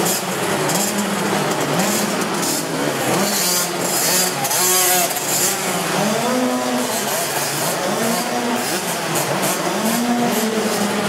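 Several small motocross bikes' engines running and revving up and down, their overlapping engine notes rising and falling.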